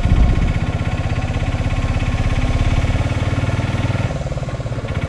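Auto-rickshaw engine running with a fast, even pulse as the three-wheeler drives along, easing off a little about four seconds in.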